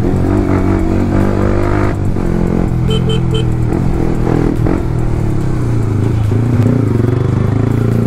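Yamaha R15's single-cylinder engine running under the rider in city traffic, easing off as the bike slows. About three seconds in, a vehicle horn beeps three times in quick succession.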